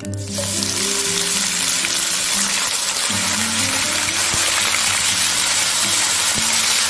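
Marinated LA-style beef short ribs sizzling steadily in an oiled frying pan, the hiss starting just after the beginning, with background music underneath.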